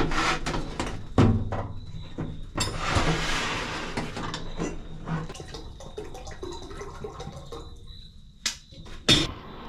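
Indoor handling noises: a run of clicks and knocks, with a burst of rushing water about three seconds in, then more small clicks and a sharp knock near the end.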